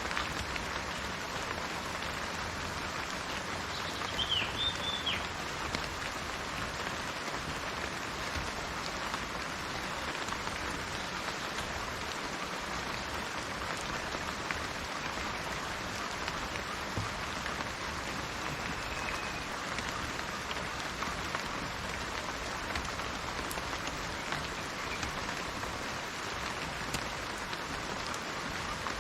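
Steady rain falling, an even patter of drops. A bird gives a few short chirps about four seconds in, and a faint call comes about two-thirds of the way through.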